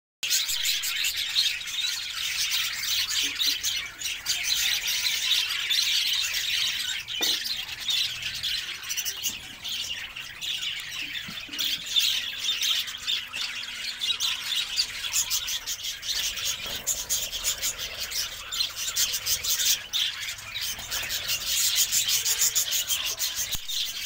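A flock of budgerigars chattering: many rapid, overlapping chirps and squawks that keep up without a break.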